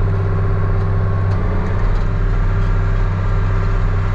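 A farm vehicle's engine running steadily at constant speed: an even low drone with a faint steady whine above it.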